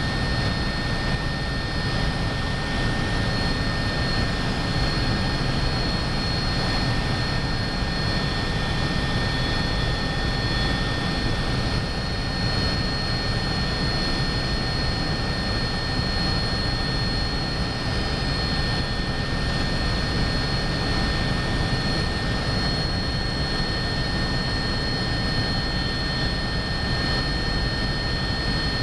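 Agusta A109BA twin-engine helicopter in flight, heard from inside the cabin: a steady high-pitched whine over a dense, even low rumble.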